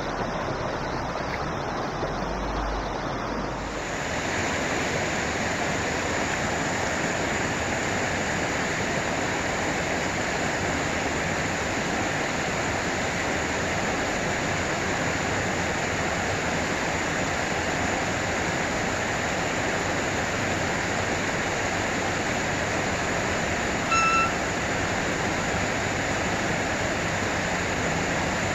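Creek water rushing steadily over rocks in a shallow crossing. A single short electronic beep sounds about three-quarters of the way through.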